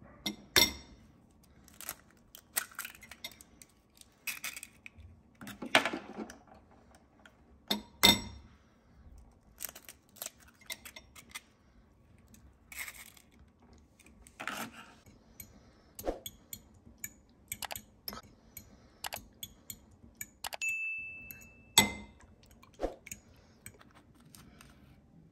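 Eggs cracked against the rim of a glass mixing bowl: a series of sharp taps and clinks of eggshell and a metal fork on glass, with some shell crunching between them.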